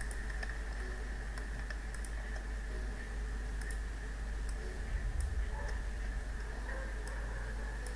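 Scattered sharp clicks of a computer mouse and keyboard as objects are selected, over a steady microphone hum with a faint high whine.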